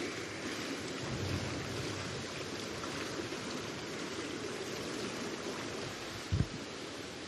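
Steady rushing hiss of indoor diving-pool ambience, with one brief low thump about six and a half seconds in.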